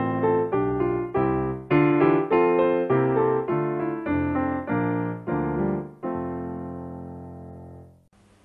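Piano playing the closing phrases of a hymn tune in struck chords, ending about six seconds in on a final chord that rings and fades away over about two seconds.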